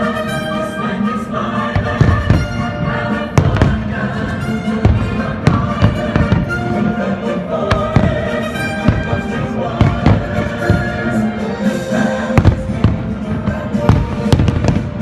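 Fireworks shells bursting in frequent sharp bangs, some landing close together, over the show's patriotic music of American folk songs.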